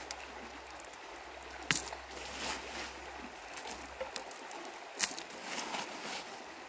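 Steady rush of a shallow stream, with a couple of sharp clicks of pebbles as loose gravel is scooped out by hand.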